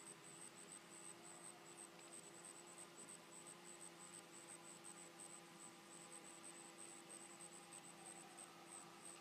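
Near silence: faint, rapid, high-pitched insect chirping, with a low steady hum beneath.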